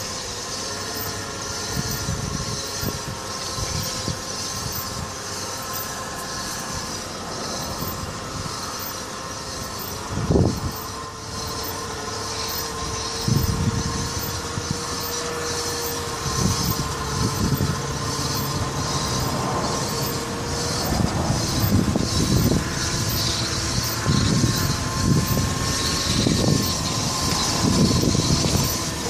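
Front driver-side wheel of a Nissan Altima coupe rolling slowly with a steady metallic squeal and scrape, over tyre noise and occasional thumps. The owner traced it to the brake rotor's heat shield rubbing on the rotor after a new wheel hub was fitted.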